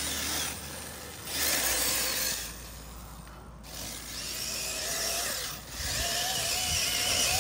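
Arrma Typhon 6S 1/8-scale RC buggy's brushless electric motor and drivetrain whining as it runs across grass, swelling and easing off with the throttle: louder about two seconds in, quieter around the middle, and building again near the end.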